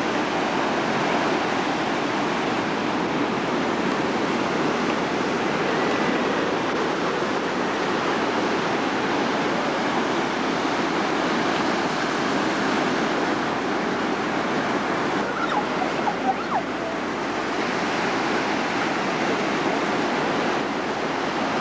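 Ocean surf washing and breaking on a beach, a steady rushing noise with no pauses.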